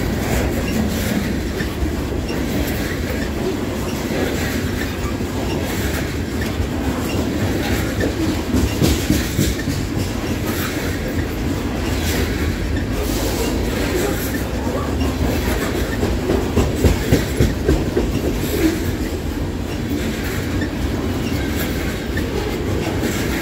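Loaded coal hopper cars of a freight train rolling past: a steady rumble of steel wheels on rail, with clickety-clack as the wheel sets cross rail joints, louder around nine seconds in and again from about 16 to 19 seconds.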